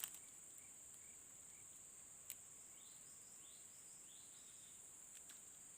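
Faint natural ambience: a steady high-pitched insect drone, with a few faint short chirps early on and some short rising calls in the middle.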